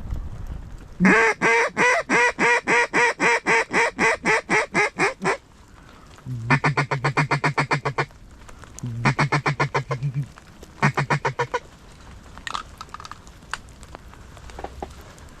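Mallard duck call blown in a hen-mallard hail call: a long series of about eighteen loud quacks slowly falling in pitch. Three shorter, quicker runs of quacks at a steadier, lower pitch follow.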